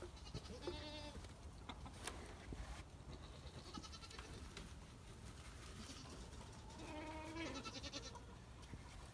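Nigerian Dwarf dairy goats bleating twice, faintly, with quavering calls about half a second in and again near the seventh second.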